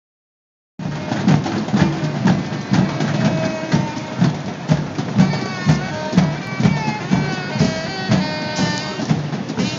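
Drums beating a steady rhythm of about two beats a second, starting just under a second in, with a rising and falling melody joining over the beat about halfway through.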